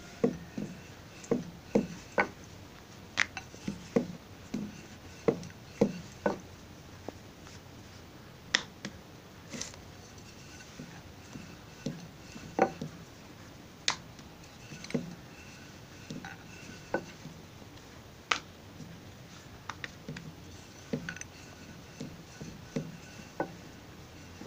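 Wooden rolling pin rolling out dough on a granite countertop, knocking and clicking against the stone at irregular intervals, one or two knocks a second at first and fewer later.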